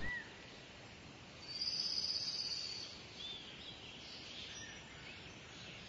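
Faint nature ambience of soft, even background noise with a few short bird chirps. About a second and a half in comes a high trill lasting about a second and a half.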